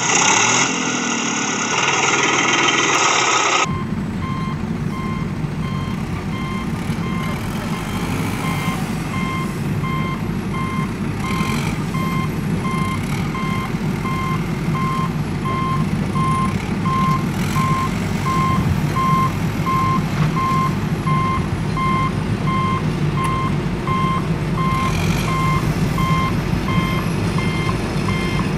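Electronic reversing-alarm beeping from a toy excavator's sound unit, about two beeps a second, over a steady buzzing motor hum as the toy tows a toy tractor. Before that, a louder engine-like noise cuts off suddenly about three and a half seconds in.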